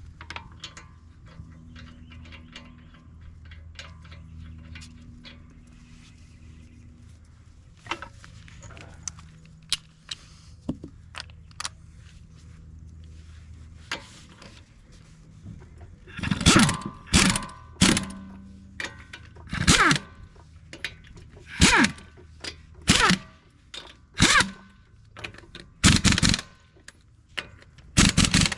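Low steady hum with scattered tool clicks and clinks, then, about halfway through, an impact wrench fired in a run of short, loud bursts, one every half second to second.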